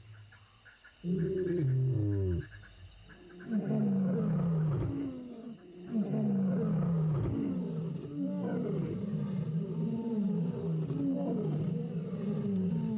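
Lions roaring: a first roar about a second in, then from about three seconds on a long run of low grunting calls that fall in pitch, repeating over and over. A steady high insect trill runs underneath.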